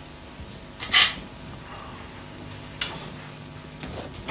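A brief clink of cutlery on china at a dinner table about a second in, and a fainter one near the three-second mark, over a low steady hum.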